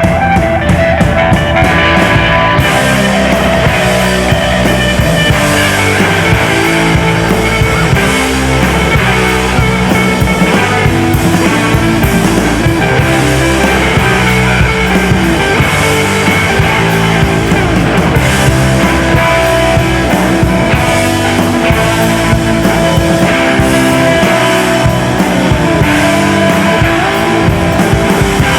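Rock band recording with electric guitar and drum kit playing a steady beat, growing fuller and brighter about two and a half seconds in.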